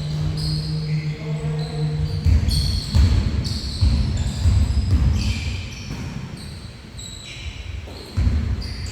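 Basketball game on an indoor court: a ball bouncing and low thuds of play, with many short high squeaks throughout.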